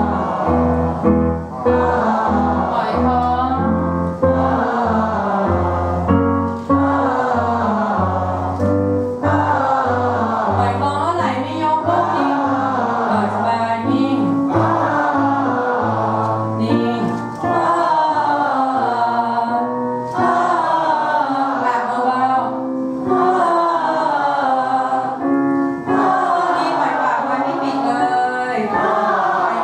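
A group of voices singing vocal warm-up scales on an 'ah' vowel in unison, following piano notes. The notes step up and down in short repeated phrases.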